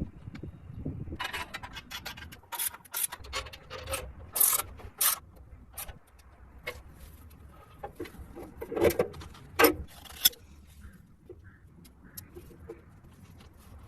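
Irregular scraping and rubbing strokes mixed with sharp clicks and knocks, like hand work with tools, busiest in the first half with a louder cluster a little before ten seconds in.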